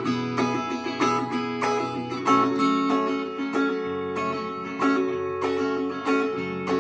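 Instrumental passage of a song: an acoustic guitar strumming chords in a steady rhythm, with no singing.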